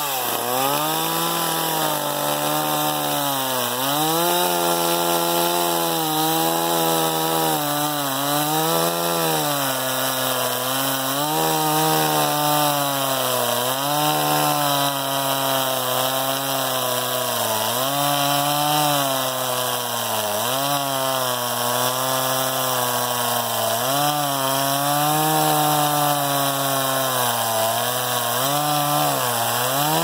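STIHL MS 260 two-stroke chainsaw running at full throttle, bucking a log. Its engine pitch dips and recovers every second or two as the chain bites into the wood.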